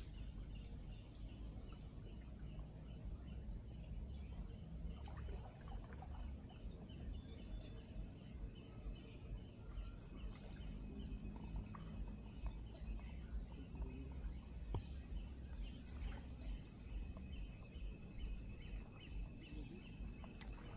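Wildlife from the riverside forest: a high-pitched chirp repeating evenly about twice a second, with a brief run of four lower notes about two-thirds through, over a low rumble.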